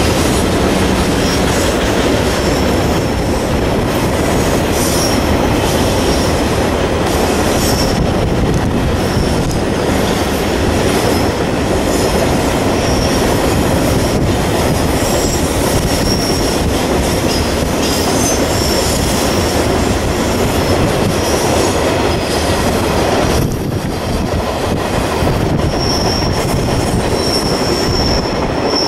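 Train running on the rails, a steady loud running noise with a high wheel squeal coming and going, strongest near the end.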